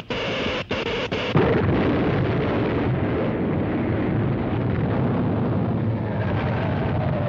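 Electric crackling sound effect that breaks off about a second and a half in into a sudden loud crash, followed by a continuous heavy rumble: the earthquake sound effect of an old cartoon soundtrack as the city shakes.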